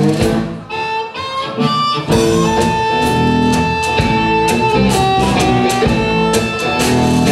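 Amplified blues harmonica solo, the harp cupped against a microphone, with a long held note about two and a half seconds in, over a strummed cigar box guitar keeping the rhythm.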